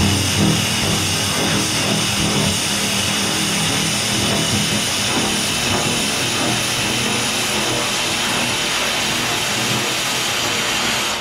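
Oxy-fuel cutting torch running steadily as it cuts through a large steel pipe, heard from inside the pipe.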